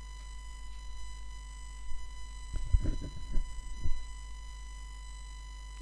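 Steady high electrical whine with a ladder of overtones over a low hum, the recording's own line noise. A few faint short low sounds come between about two and a half and four seconds in.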